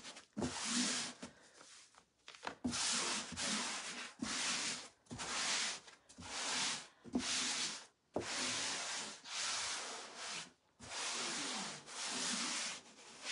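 Hands rubbing back and forth over a silkscreen transfer laid on a burlap board, smoothing the mesh down flat: a run of dry swishing strokes, about one a second, with short pauses between them.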